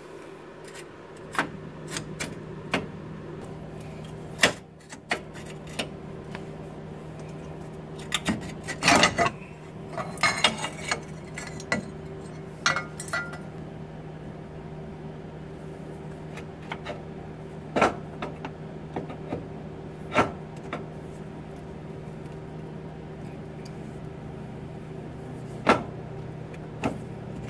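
Irregular metallic clinks and knocks from loose bolts and parts being handled against the engine mount bracket during a motor mount replacement. The clinks are thickest about a third of the way in. A steady low hum runs underneath.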